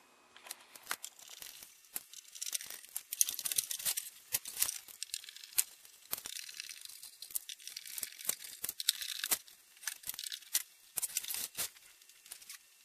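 Phillips screws being undone from the bottom and side of a metal instrument case with a screwdriver, amid handling noise: irregular scraping and sharp clicks as the case is tipped and screws come out.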